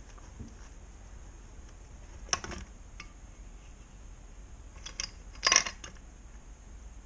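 Metallic clinks and knocks as a Honda NSR 125 R crankcase half is lifted off its gearbox shafts and gears: a few sharp clinks about two and a half seconds in, and a louder cluster about five and a half seconds in.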